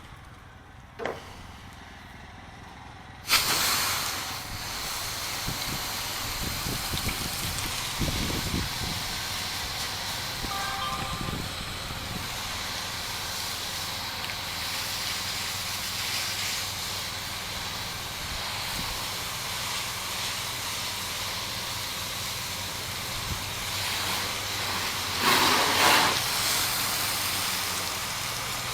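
Pressure washer running with a low steady hum; about three seconds in the spray gun is triggered and a high-pressure water jet hisses steadily, swelling louder briefly near the end.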